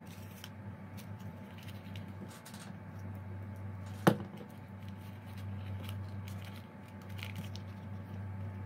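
Hands handling kraft-paper cones and ribbon on a tabletop: faint rustling and light touches over a steady low hum, with one sharp tap about four seconds in.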